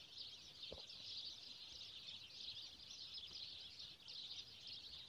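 Very quiet outdoor background of faint, steady, high-pitched chirping, with one soft tick about three-quarters of a second in.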